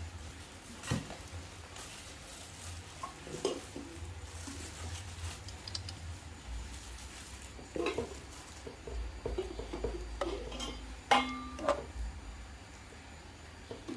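Kitchenware being handled and set down: scattered light clinks and knocks, with one louder clink that rings briefly about eleven seconds in.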